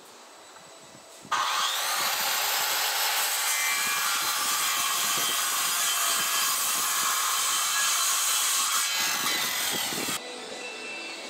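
Corded circular saw starting up about a second in, its whine rising as the blade spins up, then cutting steadily through a wooden plank for about nine seconds before it cuts off near the end.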